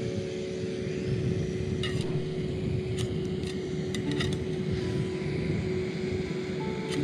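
A few sharp metal clicks and clinks as a Jetboil cooking cup is set onto its burner on a gas canister, over a steady low rumble.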